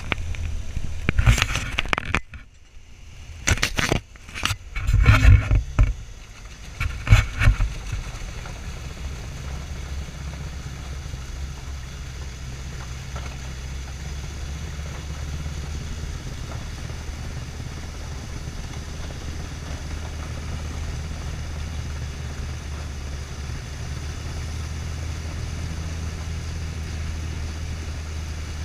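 Studebaker M29C Weasel's six-cylinder engine running steadily as the tracked vehicle churns through river water. Several loud bursts of rushing noise come in the first eight seconds, then a steady low hum.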